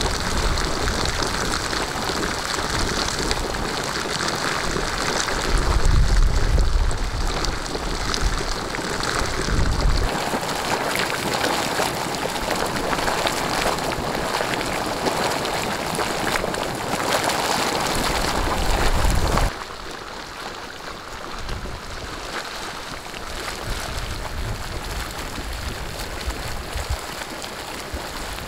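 Hot sulphur spring water gushing and bubbling up from a vent, a steady splashing rush. About two-thirds of the way in it drops suddenly to a quieter, steady bubbling.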